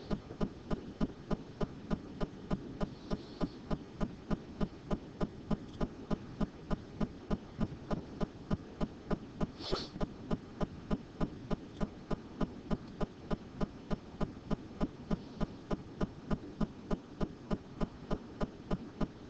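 Steady rhythmic pulsing, about three beats a second, over a low background hum, with one brief higher blip about halfway through.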